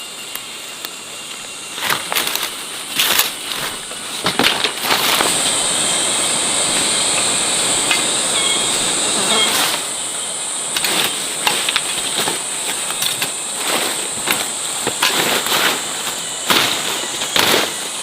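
Irregular crackling and rustling clicks, with a steady high-pitched insect-like buzz that grows louder about five seconds in.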